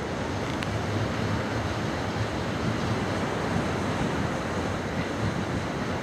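Steady roar of ocean surf with wind buffeting the microphone, over a low steady hum.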